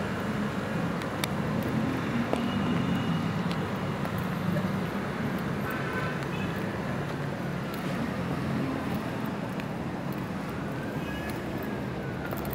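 Steady low rumble of city street traffic noise, with faint high tones that rise and fall in the second half.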